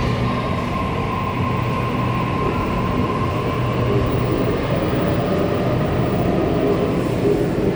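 Electric commuter train running, a steady rumble with a low hum and a thin whine that fades out about three seconds in.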